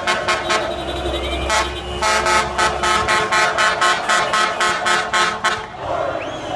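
A horn sounding in rapid repeated toots, about four a second, with a short break about a second in; the tooting stops shortly before the end.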